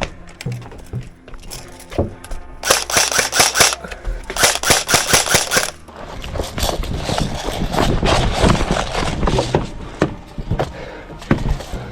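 Two bursts of rapid airsoft gunfire, each about a second long, a rapid string of sharp clicks, about three and four and a half seconds in.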